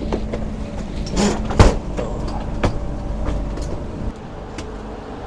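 Steady hum of a stopped Renfe Alvia carriage, with scattered footsteps and knocks from luggage as a passenger walks down the aisle. One sharp thump comes about one and a half seconds in.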